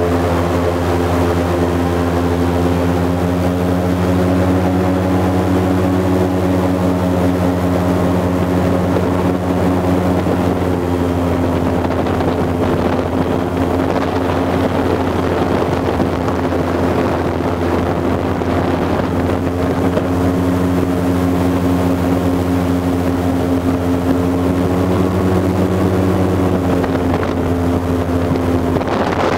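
Airboat's engine and rear propeller running steadily at speed: a loud, even drone with a deep low hum.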